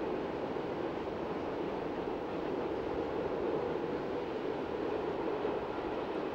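Freight train of car-carrier wagons rolling steadily across a stone viaduct: an even rumble with no distinct wheel clicks.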